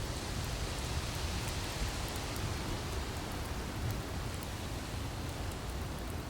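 Wood fire burning with a steady hiss and a few faint small crackles, over a low rumble.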